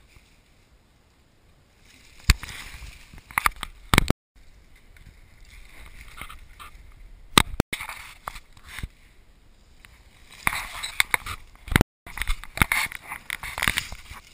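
Downhill mountain bikes passing on a dirt trail: rushing tyre noise that swells as each rider comes by, with sharp clicks and rattles of the bike over the ground, loudest near the end.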